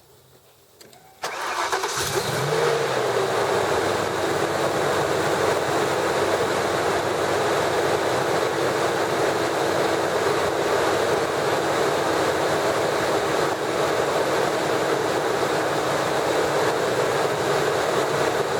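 Supercharged 5.4-litre V8 from a 2003 Ford Lightning starting from cold. It catches about a second in with a brief rev flare that falls away, then settles into a steady idle.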